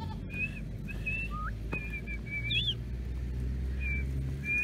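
A shepherd whistling to call his sheep: a string of short, high, mostly level notes, with a couple of quick upward glides, over a low steady rumble.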